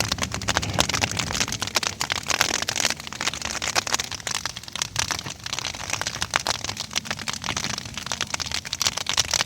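Rain falling steadily: a dense crackle of drops striking close by, over a low rumble.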